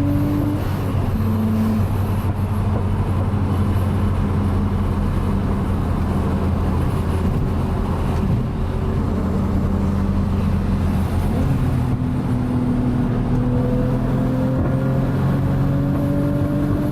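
Nissan RB25 turbocharged inline-six running as the car drives at steady, moderate revs, its note stepping a few times and climbing slowly near the end. The engine is still on its old, worn coil packs, which make it misfire under boost above about 5,000 rpm; no breaking-up is evident at these revs.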